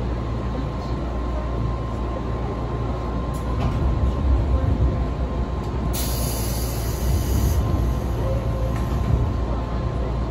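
Running noise of a train heard from inside the carriage: a steady low rumble of wheels on rail, with a short hiss about six seconds in that lasts a second and a half.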